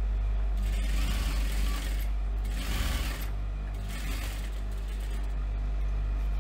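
Global industrial sewing machine stitching faux leather in a few short runs, over the steady hum of its motor.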